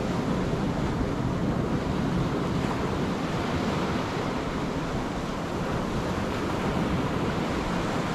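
Steady wash of sea surf, with wind rumbling on the microphone.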